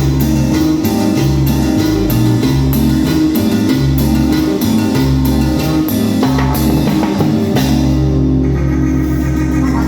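A band playing music with guitar, bass and drum kit to a steady beat. About seven and a half seconds in, the drum hits stop and a held chord rings on.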